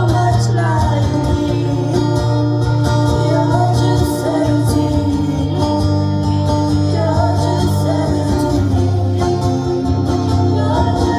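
Live acoustic music: a voice singing over guitar accompaniment.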